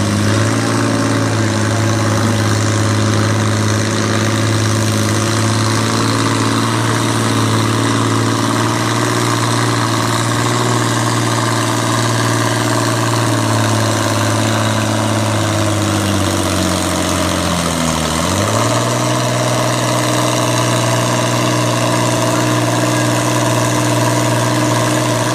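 Farm pulling tractor's engine running loud and steady, its pitch sagging slowly, then dipping sharply about 18 seconds in and recovering to a steady note.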